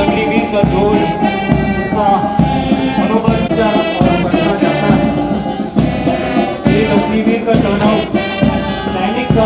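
Brass band music, with sustained brass notes and occasional drum strikes.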